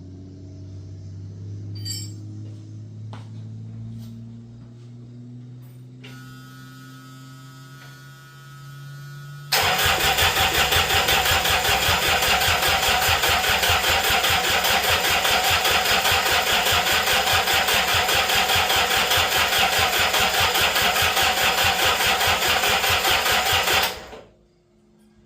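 Rebuilt diesel engine of a Mustang skid steer cranking on its starter for about fourteen seconds, a fast, even chugging that starts suddenly and cuts off without the engine catching; the owner fears the injection pump is out of time. Before it, a fainter low hum.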